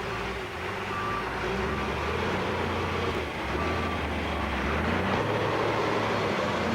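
Diesel engine of a backhoe loader working its front shovel, its note rising and falling with the load. Two short, faint high beeps sound about a second in and again near the middle.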